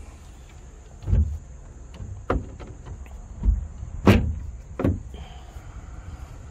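Footsteps on the SeaDek-covered aluminum deck of a bass boat: about five dull thuds roughly a second apart, the fourth the loudest.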